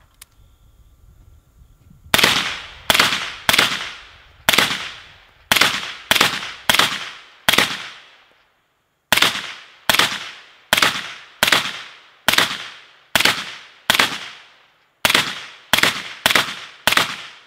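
Suppressed 8-inch Noveske 300 Blackout AR rifle firing full-power 115-grain rounds in rapid semi-automatic shots at a steel target, about twenty shots in two strings with a short pause about 8 seconds in. This load hits the steel hard enough to break up rather than ricochet, as the slower subsonic rounds did.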